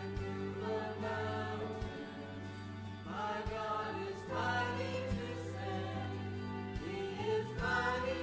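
Sacred choral music: voices singing over steady, sustained low notes.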